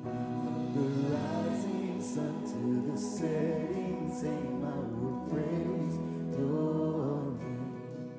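Live gospel worship music: a male lead vocalist singing a slow worship song with backing voices over a band with sustained keyboard chords.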